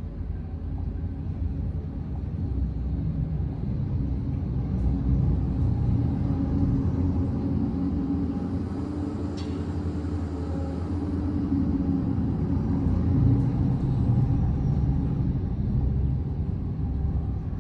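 Excavator's diesel engine running steadily, a low rumble with a slightly rising and falling engine note as it works.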